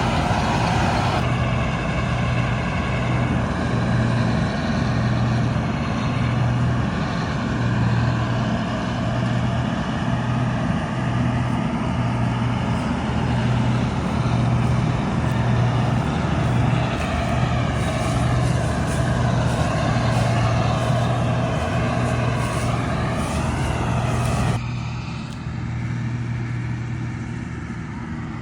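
Combine harvester's diesel engine running steadily, a deep pulsing hum with machinery whine above it. The sound changes abruptly about a second in, and drops quieter near the end.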